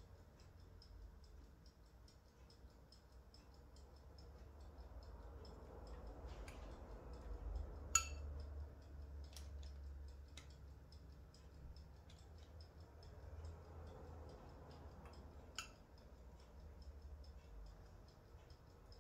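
Tomato pulp being spooned onto cauliflower slices on a parchment-lined baking tray: a metal spoon gives a sharp, briefly ringing clink about eight seconds in and another near sixteen seconds, with a few softer clicks. Faint, even ticking sounds throughout.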